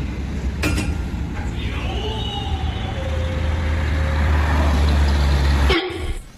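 Heavy vehicle engine running with a deep rumble that grows louder, then cuts off abruptly near the end. A sharp click comes about a second in.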